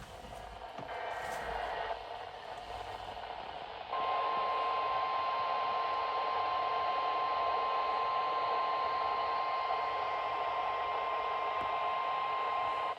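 NOAA Weather Radio broadcast with static hiss, then about four seconds in the 1050 Hz Warning Alarm Tone comes on: one steady tone held for about nine seconds over the hiss, the signal that a warning is about to be read.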